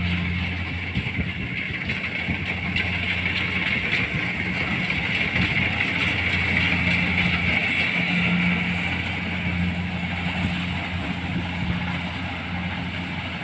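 Kubota combine harvester's diesel engine and harvesting machinery running steadily while it cuts rice, a little louder around the middle as it passes nearest.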